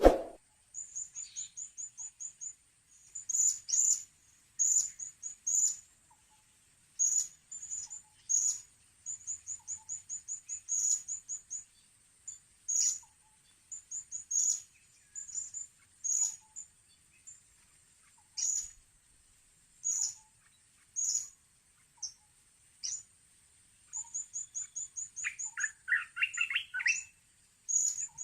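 Blue-crowned hanging parrots (serindit) calling: sharp, high-pitched chirps, some in quick runs of six or more and some single, repeating every second or so over a faint steady high whine. A short knock sounds at the very start.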